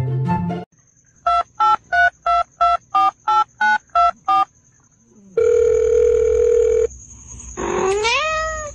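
Touch-tone telephone keypad tones: about ten quick two-note beeps of a number being dialled, then a steady tone of about a second and a half, and a short call rising in pitch near the end. Background music stops just before the beeps.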